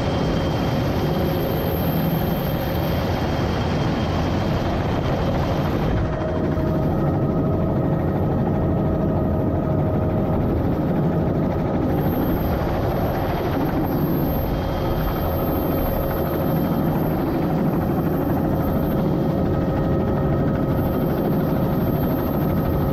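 Helicopter engine and rotor running steadily in low flight, heard from on board: a dense, constant rushing noise with a few faint steady tones whose pitch shifts slightly about six seconds in.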